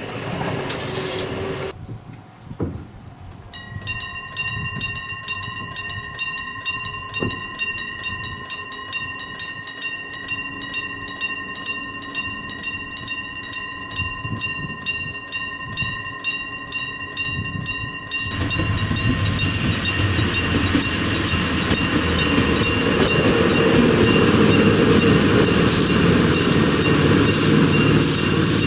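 Railway level-crossing electric bell (電鈴) starts ringing about four seconds in, struck about twice a second with a clear ringing tone. After about eighteen seconds the strikes give way to a passing train, whose running noise swells and stays loud.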